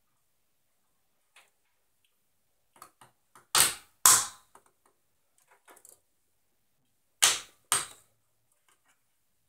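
Sharp clicks and knocks of desktop computer hardware being handled: two pairs of loud snaps, each pair about half a second apart, among fainter taps.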